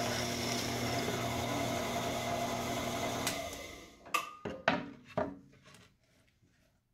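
Bench drill press running with its bit cutting into a wooden board, a steady motor whine mixed with cutting noise that dies away about three and a half seconds in. Several sharp knocks follow.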